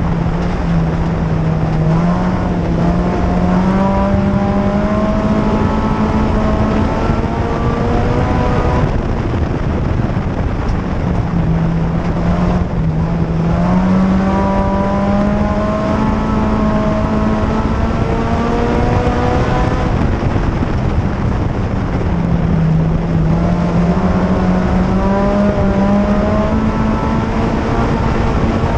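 A 2004 Chevrolet Cavalier mini-stock race car's 2.2-litre four-cylinder engine at race speed, heard from inside the cockpit over loud wind and road noise. The engine note climbs steadily, then drops back and climbs again, three times, about every ten seconds: throttle on down the straights, lifting for the turns of the oval.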